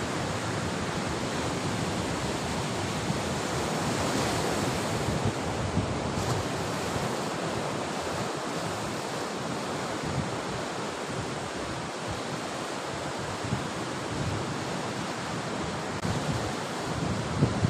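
Sea surf: a steady rush of waves breaking on the shore.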